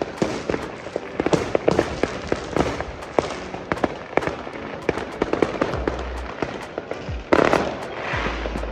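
Fireworks and firecrackers going off: a dense, irregular run of sharp pops and cracks, with a louder burst about seven seconds in.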